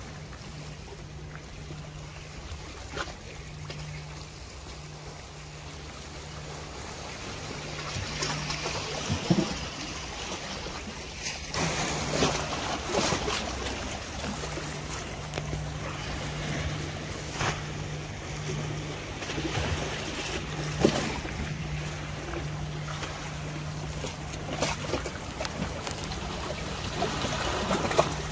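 Sea waves washing on the shore, with wind on the microphone and a steady low hum underneath. There are a few short knocks, and the sea noise swells about a third of the way in.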